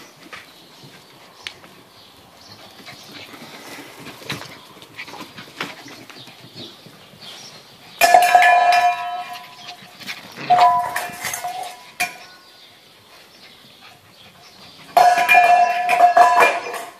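Light ticking of puppy claws on tile, then three bouts of loud metallic ringing, each a second or two long, starting about eight, ten and fifteen seconds in.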